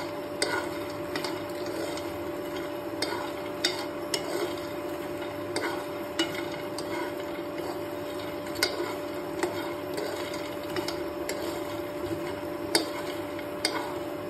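A metal spoon stirring makhana (fox nuts) dry-roasting in a nonstick pan. The light seeds rattle and the spoon clicks against the pan at irregular intervals, over a steady hum.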